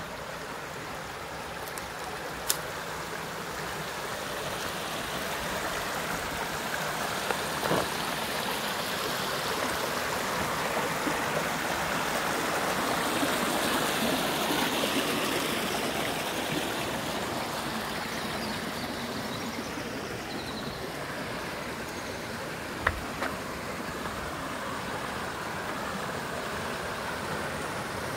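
Shallow creek water running over rocks, a steady rush that swells in the middle and eases again. A few brief sharp knocks stand out over it.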